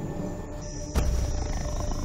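Big cat growling low over music, with a sharp thump about a second in.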